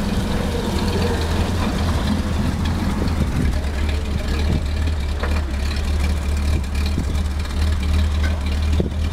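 A vintage WWII military vehicle's engine idling steadily, a low even hum.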